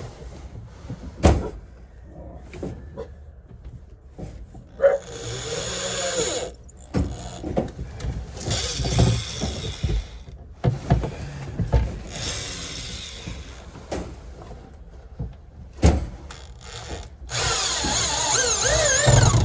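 Power drill driving screws into wood: four runs of a couple of seconds each, with knocks and clicks between them as the screws are set.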